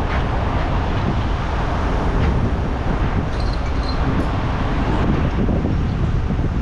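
Steady wind buffeting the microphone, a low, uneven rumble, with a few faint clicks in the middle.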